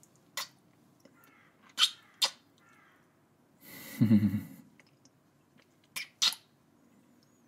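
Close-miked ASMR kissing sounds: five short lip smacks, one alone, then a pair, then another pair near the end. About halfway through there is a breathy exhale with a low hum in it.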